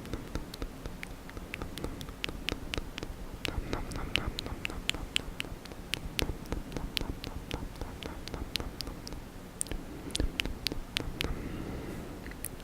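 Close-miked wet mouth sounds: tongue, lips and saliva making a string of irregular smacks and clicks, several a second.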